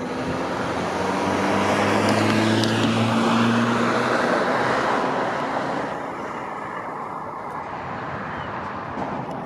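A road vehicle driving past, its engine and tyre noise growing louder, peaking a few seconds in, then fading as it goes by, its pitch dropping as it passes.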